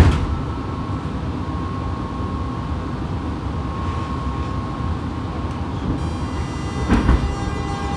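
Inside a Fukuoka City Subway 2000 series car, directly above its Hitachi late-type GTO-VVVF inverter: a steady low hum while stopped. About six seconds in, the inverter's many-pitched electronic whine starts up as the train begins to move off, with a knock about a second later.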